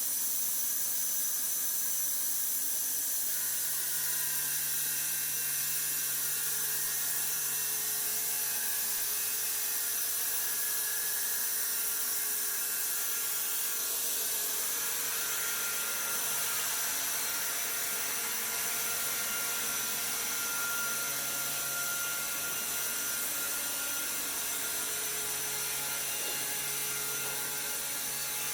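Sawmill woodworking machine running steadily, a high-pitched mechanical whine over a hiss, with the pitch of its tones shifting a couple of times.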